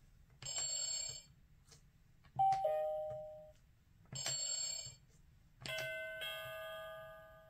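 Electronic doorbell chimes from a children's Play-a-Sound book's speaker as its buttons are pressed: a two-note falling ding-dong about two and a half seconds in, and a longer ringing chime near the end that fades away. Shorter electronic ringing sounds come about half a second in and again about four seconds in.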